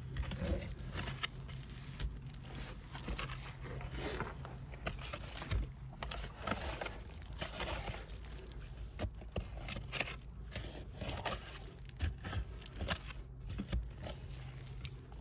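Digging in a dirt pit: irregular scrapes, small knocks and rustling of soil and debris being worked loose.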